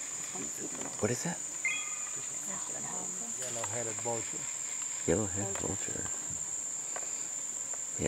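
Steady high-pitched drone of rainforest insects, unbroken throughout, with a short high chirp about two seconds in. Faint voices talk briefly about a second in, around the middle and again after five seconds.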